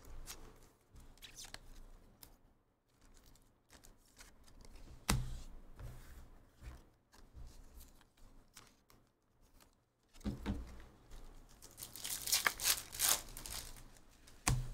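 Foil wrapper of a Topps Chrome trading-card pack being torn open and crinkled, in a run of rips loudest a couple of seconds before the end. A single sharp tap about five seconds in, with faint handling sounds between.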